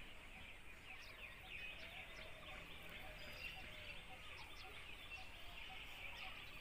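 Faint background birdsong: many short high chirps, with one low note repeating about twice a second.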